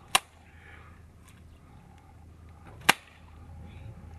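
Two sharp slapping impacts about three seconds apart, something struck hard against a concrete jetty by a man bent over at its edge. Faint steady background between them.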